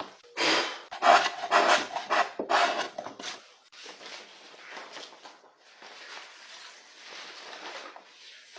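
A hand tool scraping across wood in quick back-and-forth strokes, about three a second at first, then softer and more even from about four seconds in.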